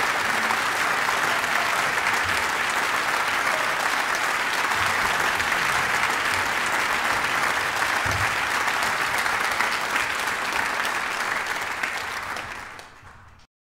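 Audience applauding, steady, then fading over the last second or so before cutting off suddenly.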